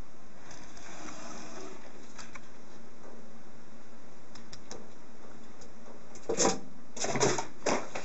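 A few sharp clattering knocks over a steady hiss, coming in quick clusters near the end.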